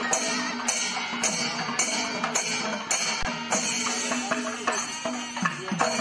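Percussion music: sharp strikes about twice a second over a steady low drone.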